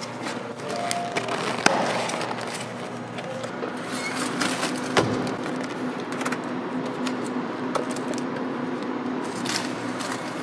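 Clear plastic salad bowls being lidded and handled onto the shelves of a refrigerated display case: scattered sharp plastic clicks and taps over a steady low hum.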